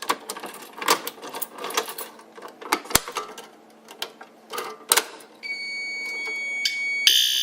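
Clicks and rattles of a BG-12L manual fire alarm pull station being handled and pulled, with one sharp snap about three seconds in. From about five and a half seconds in a steady high electronic tone sounds, ending in a short loud alarm burst near the end: the system answering the pull during an audible walk test.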